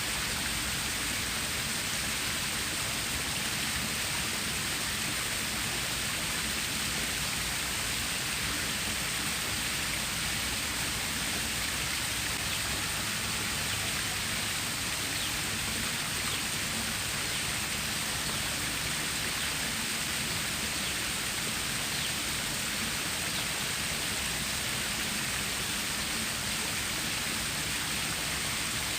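Stream water running: a steady, even rushing hiss that does not change.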